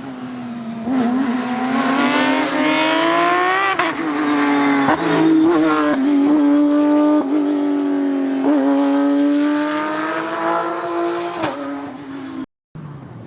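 Rally car engine at full throttle, its pitch climbing and dropping sharply several times as the driver shifts quickly up through the gears, with a few short cracks in between.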